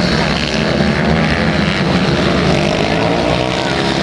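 Several pit bikes racing together, their small single-cylinder engines running at high revs, overlapping, with pitch rising and falling.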